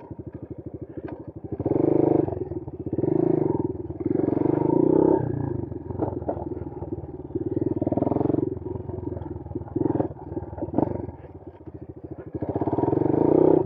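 Bashan Brozz 250 dual-sport motorcycle engine riding on a trail, swelling up and dropping back several times as the throttle is opened and closed.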